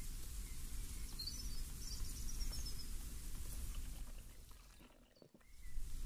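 Steady low breeze rumble with a short run of high bird chirps about a second in. The whole sound fades almost away near the end, then comes back.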